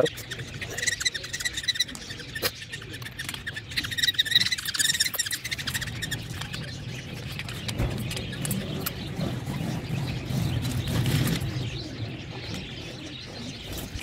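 Baby budgerigar chicks chirping in short high repeated calls, with light clicks throughout and a low rumble in the second half.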